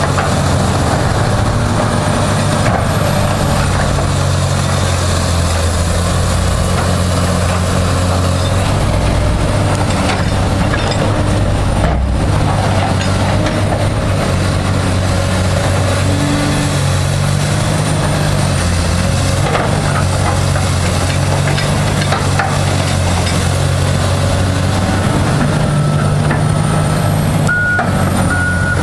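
Caterpillar 325C excavator's diesel engine running under working load, its pitch shifting a little as the hydraulics move the boom and drag a steel shuttle box, with a few faint knocks. Near the end a steady high backup-alarm tone starts.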